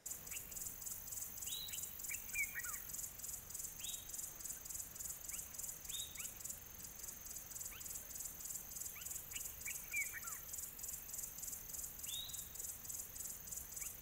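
Faint outdoor soundscape: insects trilling high in a fast, even pulsing rhythm, with scattered bird calls, short downward-sliding notes every couple of seconds and two quick descending runs of notes, one early and one about two-thirds through.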